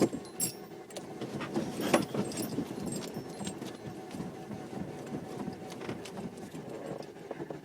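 2000 Saturn LS engine running rough, choking and sputtering unevenly like a lawnmower as it struggles to keep going. A few sharp knocks come near the start and about two seconds in.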